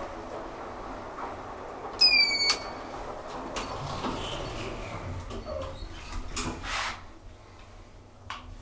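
Elevator car running with a steady low hum; about two seconds in, a short, high electronic chime sounds, the car's arrival signal. A few light clicks and a brief rush of noise follow later.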